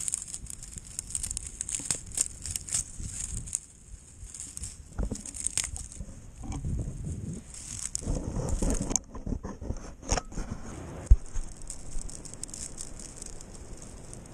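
Dry beach scrub rustling, crackling and snapping as its twigs are pulled up by hand from the sand and gathered for kindling. There is a steady high hiss throughout and a single sharp knock about eleven seconds in.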